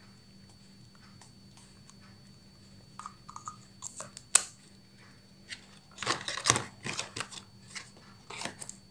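Cosmetics being handled: small plastic clicks and taps from the lipstick and its packaging, a sharper click about four seconds in, then rustling and knocking of boxes through the second half, over a faint steady hum.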